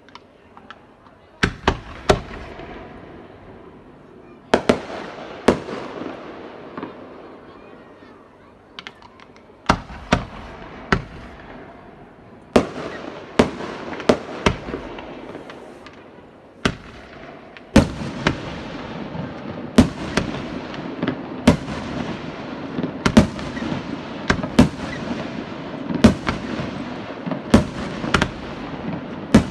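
Fireworks display: aerial shells bursting with sharp bangs, each followed by a fading rumble and crackle. The first bangs come in a few scattered clusters; from about halfway they come roughly once a second over a continuous crackling rumble.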